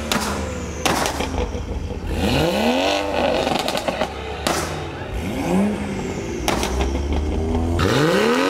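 Performance car engines, BMWs among them, revved hard several times, each rev climbing and falling away, with sharp exhaust pops and bangs cracking between the revs.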